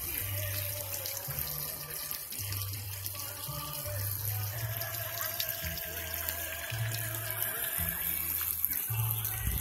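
Water splashing steadily in a small rock-rimmed garden fountain, over music with a low bass line whose notes step up and down every half second or so.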